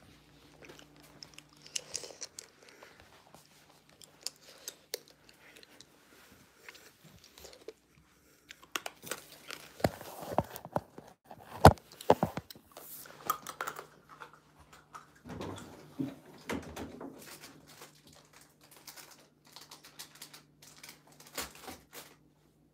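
Phone handling noise: fingers rubbing, tapping and knocking on the phone's body close to its microphone, with scattered clicks and rustles and one sharp knock near the middle. A faint steady hum runs underneath.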